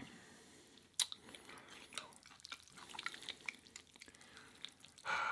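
Light clicks and taps of utensils working in a bowl of noodles and broth, with a sharper click about a second in and a louder, noisier sound near the end.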